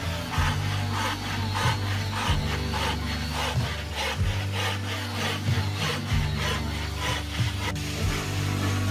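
Hand saw cutting through wood in even back-and-forth strokes, about two to three a second, over background music with a bass line.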